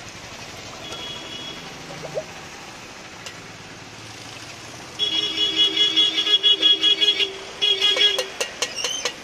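A vehicle horn sounds about five seconds in, a loud, wavering, steady tone lasting about two seconds, then sounds again briefly.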